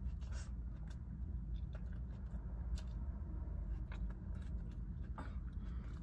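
Steady low rumble inside a car cabin, with faint scattered clicks and rustles as food is eaten.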